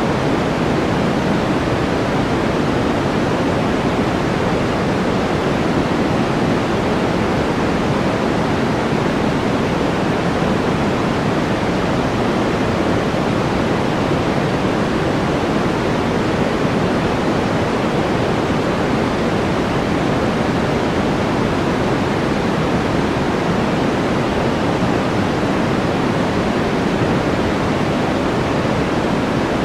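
Steady noise-generator background track, an even rushing hiss weighted toward the low end, with no breaks or changes.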